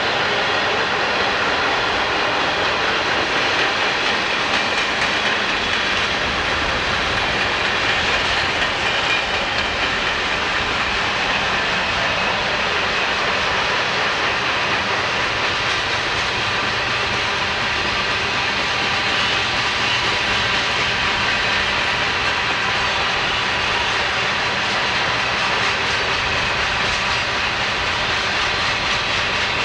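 Steady rumble and hiss of a long freight train's steel wheels rolling on the rails as car after car passes, unbroken and even in loudness.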